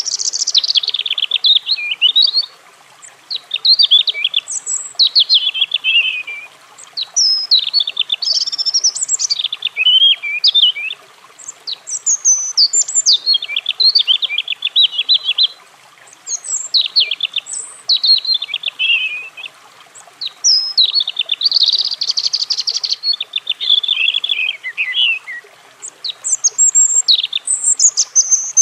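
European robin singing: a string of high, rapid warbling phrases, each two to four seconds long, made of quick up-and-down notes and trills, with pauses of about a second between phrases.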